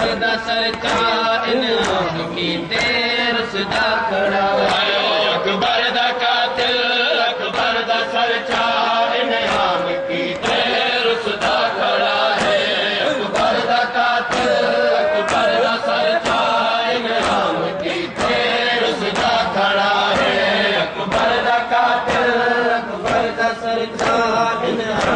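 Voices chanting a Punjabi noha, a mourning lament, without music. The chanting is punctuated by repeated sharp slaps of hands beating on chests (matam).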